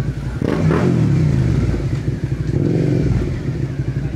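Suzuki SV650 V-twin engine running through an aftermarket exhaust with the catalytic converter removed. About half a second in it gets louder as the throttle opens, then the revs slide down over the next second.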